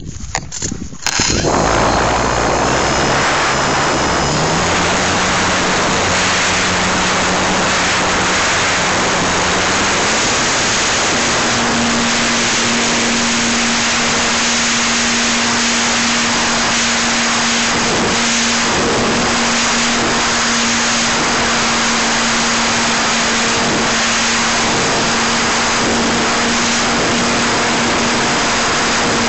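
Small aircraft engine running in flight under heavy rushing wind on the microphone, loud and steady from about a second in; its tone steps up in pitch twice as power increases.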